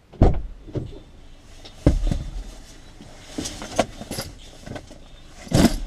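A car's driver door opened from outside and a man climbing in with a bag, heard from inside the cabin: a sharp clunk just after the start and another about two seconds in, light clicks and rustling, then a louder thump with rustling near the end.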